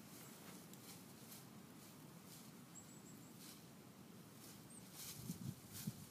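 Faint rustling and crackling of dry fallen leaves as a dog noses through a leaf pile, searching; it grows louder near the end.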